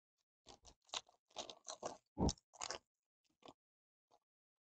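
Shiny trading-card pack wrapper crinkling and tearing open by hand, a quick run of short crackles.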